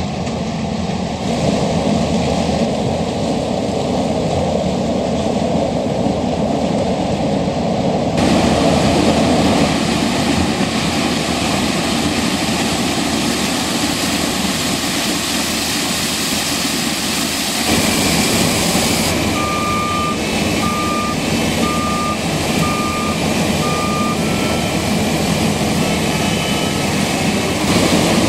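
New Holland CX 7090 combine harvester running steadily while harvesting corn; the machine noise changes abruptly twice. Past the middle a reversing alarm beeps five times at even spacing, about one beep a second.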